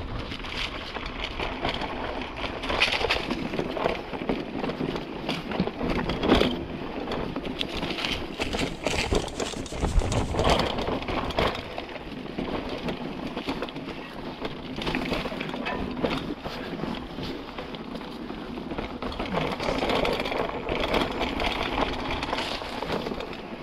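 Mountain bike rolling over a rough trail: steady tyre and wind noise with frequent irregular knocks and rattles from the bumps.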